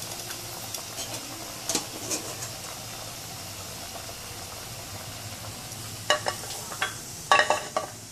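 Pappu chekkalu (rice-flour crackers) deep-frying in a kadai of hot oil: a steady sizzle with small crackles. A few sharp knocks and clatters come about six seconds in and again near the end, louder than the frying.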